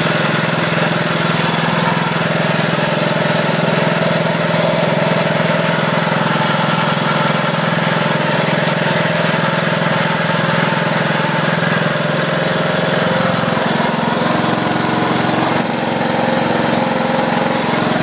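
Riding lawn mower engine running steadily at idle, with a slight change in its tone about three-quarters of the way through.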